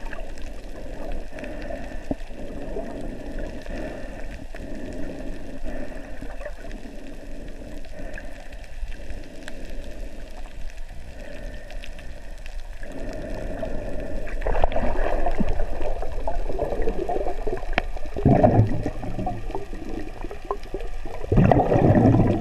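Muffled underwater water noise picked up by a submerged camera, getting louder in the second half with several stronger rushing surges near the end.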